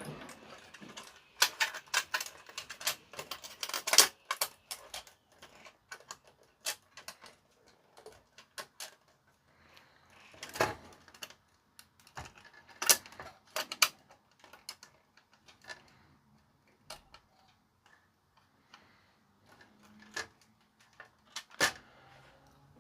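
Irregular clicks, taps and light knocks of parts being handled while an amplifier is reassembled on the bench, some close together in quick runs and a few louder single knocks.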